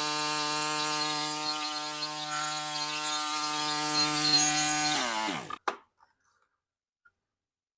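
Briggs & Stratton engine on a Craftsman LT1000 riding mower running at a steady speed to warm its oil before an oil change. About five seconds in it is switched off, and its pitch falls as it winds down to a stop, followed by a single click.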